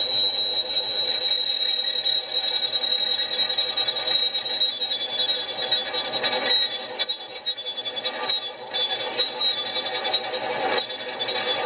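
Milling machine's horizontal-head spindle driving a twist drill into duplex stainless steel plate, cutting a tapping-size hole for a 1/8 BSP boiler stay. A steady high-pitched whine runs over the machine's running.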